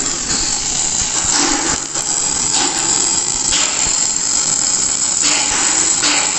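Welding arc crackling and sizzling steadily, with uneven surges as the bead is laid.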